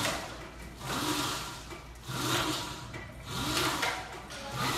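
Marpo rope trainer worked hand over hand: about four or five pulls, one every second or so. Each pull brings a whir from the machine's resistance that rises and falls in pitch, with the hiss of the rope running through the hands.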